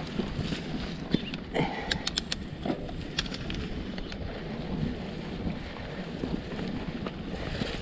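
Mountain bike ridden along a dirt singletrack strewn with dry leaves: steady tyre and wind rush, with a run of sharp rattling clicks from the bike about two seconds in.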